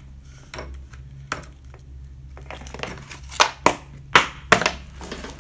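Ice cubes being set down and shifted on a glass pot lid, clinking and knocking against the glass and each other in a run of sharp, irregular clicks, the loudest in the second half.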